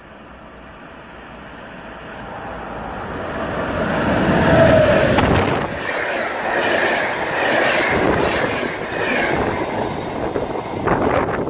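EuroCity Polonia express passenger train, hauled by an EP09 electric locomotive, approaching and passing close at speed. Its rushing noise builds over the first few seconds and peaks as the locomotive goes by about four to five seconds in. It carries on as the coaches pass, with their wheels clattering over the rail joints, and eases off near the end.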